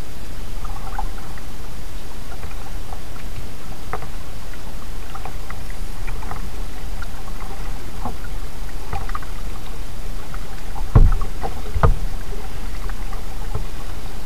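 Kayak paddle strokes dipping and splashing in calm water, roughly one a second, over a steady low noise. Near the end come two louder thumps about a second apart.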